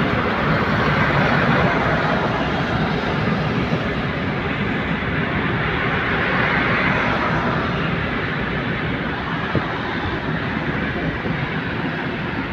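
Steady rushing road noise from inside a moving car: tyres on the road and wind, easing off slightly toward the end.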